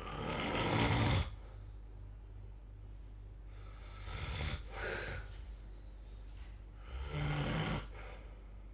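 Snoring: three snores about three seconds apart. The first is the loudest, swelling over about a second before it cuts off.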